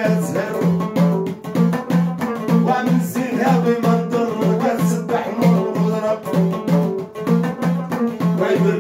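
A Moroccan folk song: a man singing to a plucked long-necked lute, over a steady low pulse about twice a second.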